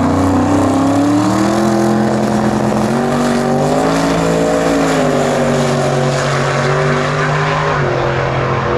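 A 1955 Chevrolet drag car's engine at full throttle, launching and accelerating away down the drag strip. Its pitch rises and falls in steps several times and drops near the end.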